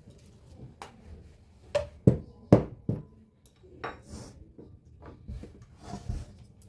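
Objects being moved and set down on a workbench: a run of knocks and clatters, the loudest a few hard knocks about two seconds in, with lighter taps and rubbing after.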